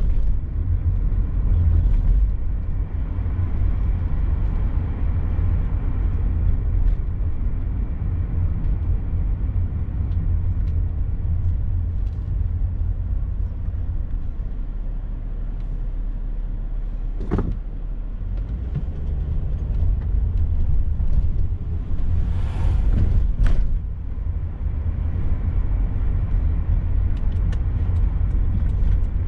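Vehicle driving, with a steady low rumble of engine and road noise. A couple of short clicks and a brief hiss come a little past the middle.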